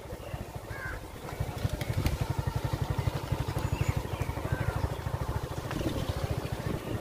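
Small engine idling with a fast, even chugging.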